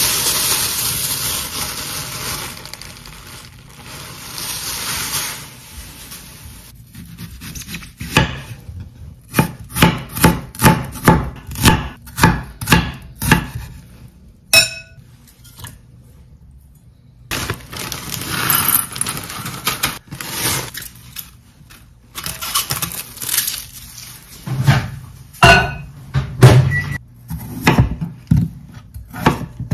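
A black plastic bag crinkling as it is unwrapped, then a knife slicing an onion on a wooden cutting board, about two cuts a second. Near the end, slower, uneven knife strokes cut peeled potatoes on the board.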